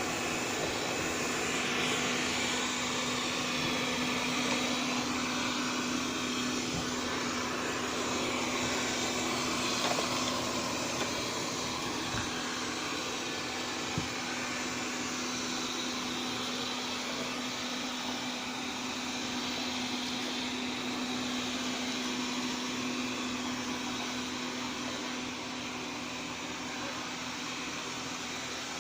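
Xiaomi Mi Robot Vacuum-Mop P running, a steady motor and suction hum with a constant low tone, and a few light clicks near the middle.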